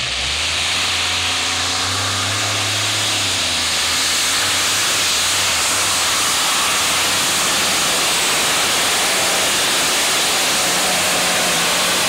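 Multi-engine modified pulling tractor running flat out under load as it drags the weight sled, a loud, steady, harsh roar of engine noise. Its low engine note is strongest in the first few seconds before settling into an even wash.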